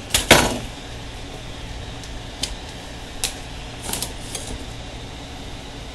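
Handling noises of a steel rod, ruler and marker on a workbench: a sharp knock near the start, then a few light clicks, over a steady low hum.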